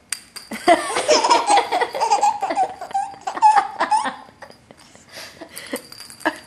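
Baby laughing, a long run of high, choppy belly laughs that fades to a few faint sounds over the last two seconds.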